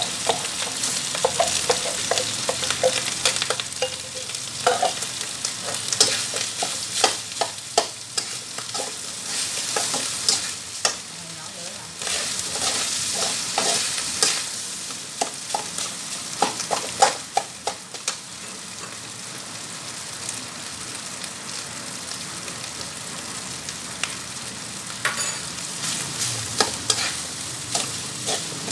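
Fried rice with diced Chinese sausage and fish balls sizzling in a steel wok, while a metal spatula scrapes and clacks against the pan as it is stirred. The sizzle and clacking are busiest for the first two-thirds, then settle quieter.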